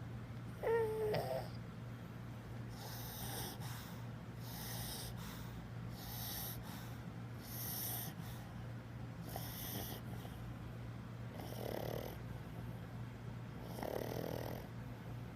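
A sleeping pug snoring, a wheezy snore about every one and a half to two seconds. A brief pitched squeak about a second in is the loudest sound, and a steady low hum runs underneath.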